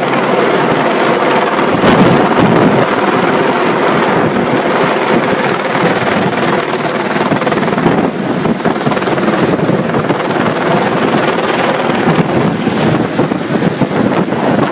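Rescue helicopter hovering close overhead: a loud, steady rotor and engine noise, with its downwash buffeting the microphone.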